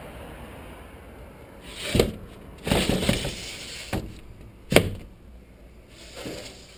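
Sharp knocks and clunks from a GoPro on a suction-cup helmet mount as the helmet and camera are handled, carried through the helmet shell. The first comes about two seconds in, a quick cluster follows, and the loudest lands near the end, over a faint steady hum.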